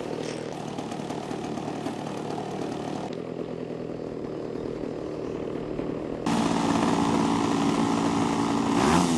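Model airplane engine idling on the ground with a steady hum. It is louder from about six seconds in, and its pitch starts to rise near the end as the throttle is opened.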